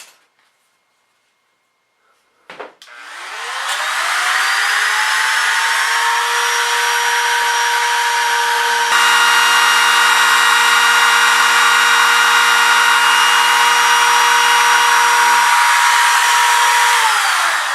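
Trim router spinning up with a rising whine about three seconds in, running steadily at full speed while routing a shallow mortise for the door's latch plate, its tone changing about halfway through, then winding down near the end.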